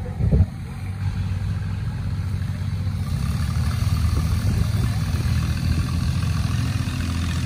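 A steady low engine hum, like a motor idling, with a brief knock about half a second in.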